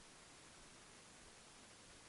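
Near silence: a steady, faint hiss of background noise.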